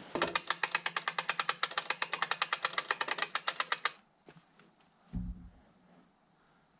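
Rapid, even ratchet clicking, about ten clicks a second, for about four seconds as a log is hauled along by hand ratchet. It stops suddenly, and a dull thump follows about a second later.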